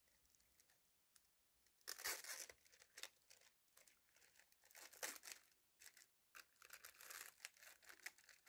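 Plastic bag being opened and handled around a carbon fiber laptop sleeve: irregular rustling in short bursts, starting about two seconds in after near silence.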